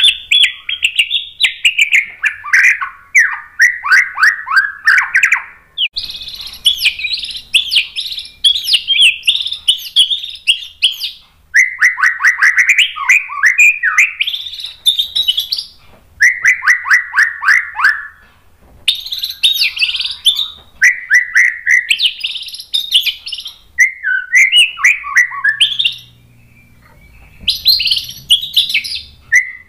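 White-rumped shama singing loudly in a run of phrases, each a fast burst of notes, many falling in pitch, with short pauses between them and a longer gap near the end.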